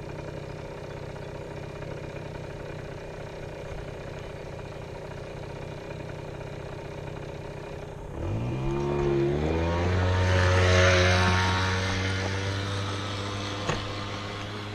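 ATV engine running steadily, then about eight seconds in revving up as the machine pulls away, its pitch rising quickly and then holding at a higher steady note.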